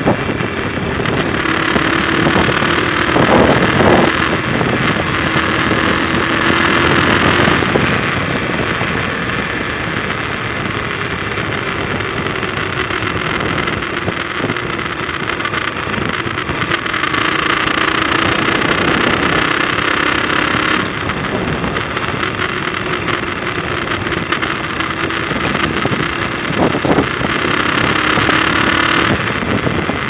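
Motorcycle engine running while riding, with wind and road noise over the microphone. The noise swells louder three times in the upper range, for several seconds each.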